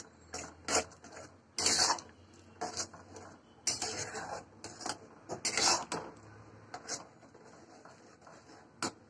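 A long metal spoon stirs thick lentil dal in a metal pot, scraping and clinking against the pot in irregular strokes, with a sharp clink near the end.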